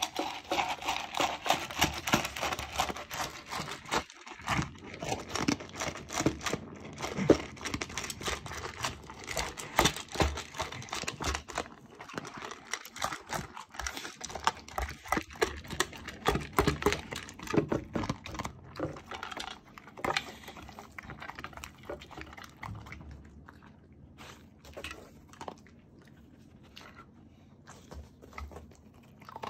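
Corgi eating dry dog food: rapid crunching and chewing, dense at first, thinning out after about twenty seconds into scattered crunches and clicks as it picks up spilled pieces.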